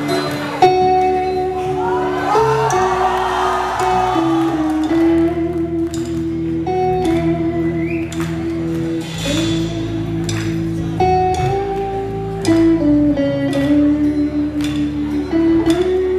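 Live rock band of electric guitars, bass guitar and drums playing a song's instrumental intro, with held guitar notes over a bass line. The drum hits grow stronger in the second half.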